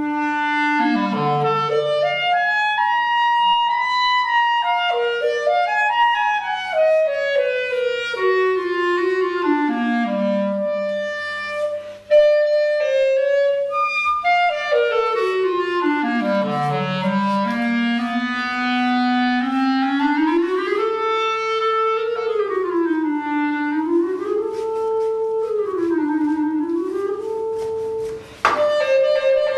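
Solo clarinet improvising: long downward-sweeping runs and slow, weaving phrases that rise and fall, with brief breaks about twelve seconds in and near the end. A faint steady low hum lies underneath.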